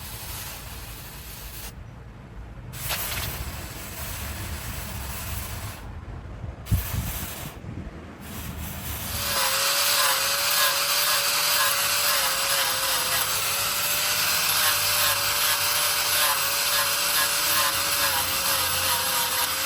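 Low rumbling noise, then about nine seconds in a power tool starts running steadily with a slightly wavering whine.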